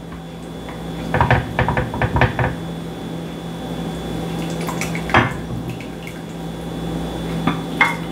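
Serving utensil clinking and scraping against a pot and bowl as lamb stew is dished up, with soft splashes of broth. There is a quick run of clinks about a second in and a few single knocks later, over a steady low hum.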